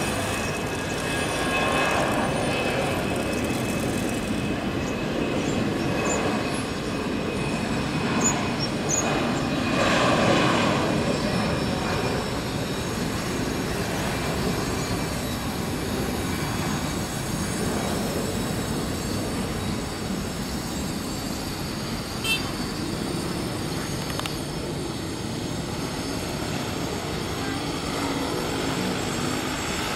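An Airbus A320-216's CFM56 jet engines at takeoff thrust during the takeoff roll: a loud, steady roar with a faint high whine, swelling about ten seconds in.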